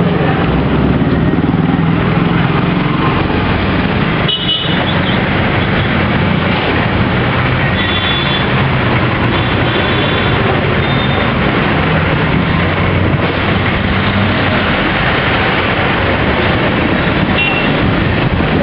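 Road traffic noise with a vehicle engine running steadily and other vehicles' horns tooting briefly several times.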